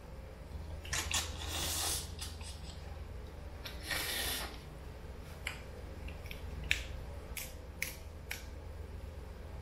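Cooked lobster being picked apart by hand: shell pieces snapping and cracking in a string of sharp clicks in the second half, with two longer noisy stretches of sucking and chewing meat from the shell, about a second in and again about four seconds in.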